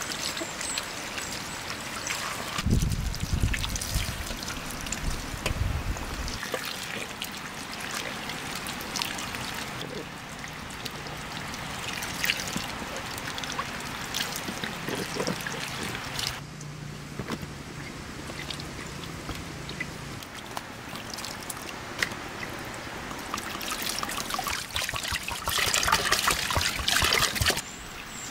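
Water poured from a clay jug splashing and trickling over tomatoes and peppers in a metal basin as they are rinsed by hand. The splashing is loudest near the end.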